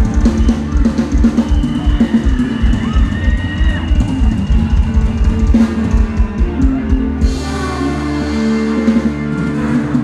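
Live ramwong band music with a fast drum kit beat of bass and snare. About seven seconds in the drums stop, leaving held notes ringing out.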